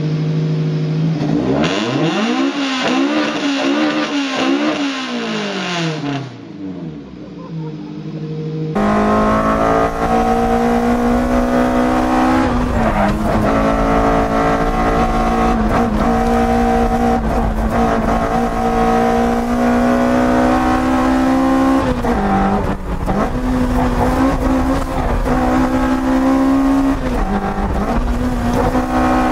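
Toyota AE86's 4A-GE twin-cam four-cylinder engine in clips cut together. In the first clip the pitch rises and falls. After an abrupt change about nine seconds in, the engine holds a steady high-rev note, dipping briefly a few times.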